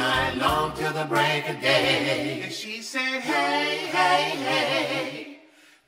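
Sung vocal harmonies in a blues-rock song over a bass line, with drums dropping out after about a second. The sound fades away shortly before the end.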